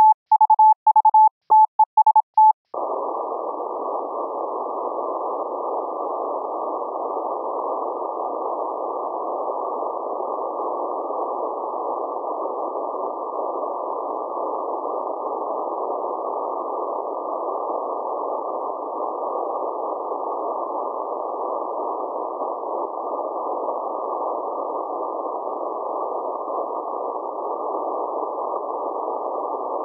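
Morse code sidetone from a keyable code-practice oscillator: a single pitched tone keyed on and off in quick dits and dahs for the first few seconds. It then gives way to a steady hiss held to a narrow band, like filtered radio noise, for the rest of the time.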